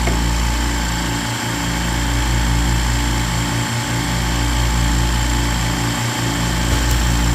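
Sauce-processing machine running steadily with a low hum and a fast mechanical pulse; the lowest part of the hum dips briefly at regular intervals, about every two and a half seconds.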